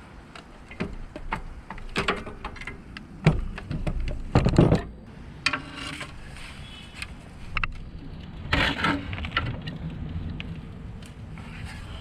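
Scattered clinks, knocks and clatter of hand tools and metal parts being handled while a cover comes off the RV step mechanism, with louder knocks about three and four and a half seconds in and again near nine seconds.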